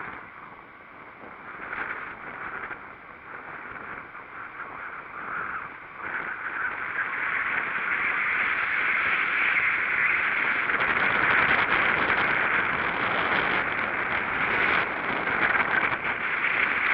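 Wind and road noise rushing past a bicycle-mounted camera on a downhill ride, growing louder from about six seconds in as the bike gathers speed, then holding steady.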